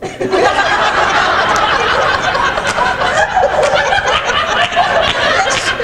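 A roomful of people laughing, breaking out all at once and keeping up steadily.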